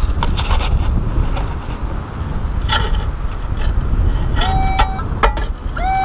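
Minelab metal detector sounding on a buried target: a short steady beep about four and a half seconds in, then a couple of rising-and-falling warbling beeps near the end. Under it a steady low rumble and scattered clicks.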